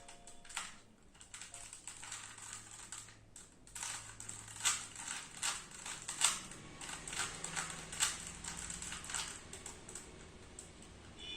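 Rubik's cube faces being turned by hand: irregular rapid plastic clicks and rattles, several a second, busiest in the middle.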